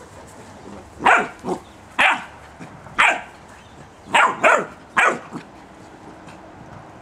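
Puppy barking in a run of short barks, about one a second, some coming in quick pairs, stopping after about five and a half seconds.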